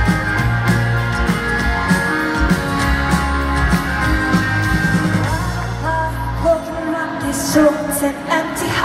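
Live band playing through a hall's PA, heard from the audience: electric and acoustic guitars, bass and drums, with voices. The heavy bass drops out about two-thirds of the way through, leaving lighter guitar lines and a few sharp hits.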